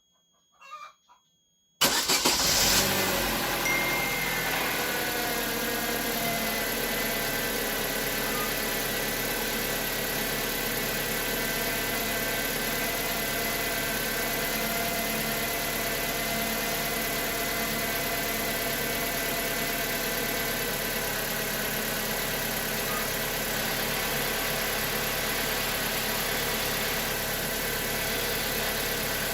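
Cold start of a Chevrolet Aveo's F14D4 1.4-litre four-cylinder engine: it catches suddenly about two seconds in, runs loud and high for a couple of seconds, then settles into a steady idle. The start-up knock from the cam phasers, the fault this start tests after the oil pressure valve was replaced, is at most a trace: the owner hears some sound left, but much quieter than before.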